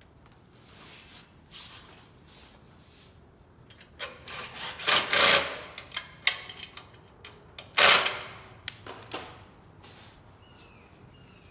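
Parts and tools being handled during reassembly of a small portable generator: irregular rustling and clattering with a few sharp knocks, loudest in two bursts around the middle. A few faint short chirps near the end.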